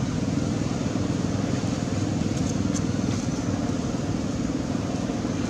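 Steady low rumble, like a distant engine or traffic, running evenly with no distinct events, with a few faint high ticks.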